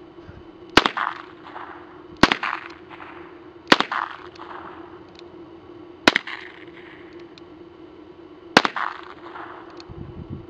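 Smith & Wesson pre-war K-22 Outdoorsman revolver firing .22 LR, five single shots spaced about one and a half to two and a half seconds apart, each sharp crack trailed by a short echo. Faint light clicks sound between the later shots.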